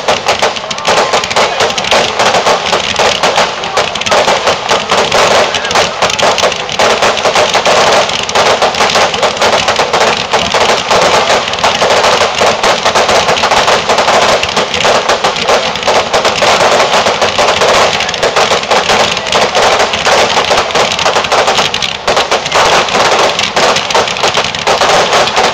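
Fireworks fired from ground level, spraying sparks, in a loud, dense, rapid crackling barrage that hardly lets up, with one brief lull about 22 seconds in.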